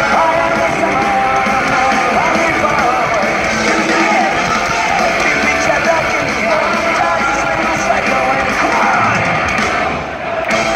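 A live rock band playing loud through an arena PA, heard from within the crowd. The music drops briefly just before the end.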